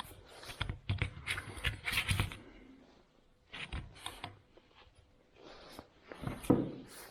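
Tabs on the cover of an Austin-Healey overdrive throttle switch being worked open by hand: irregular small clicks, taps and scrapes, with a louder knock and scrape about six and a half seconds in.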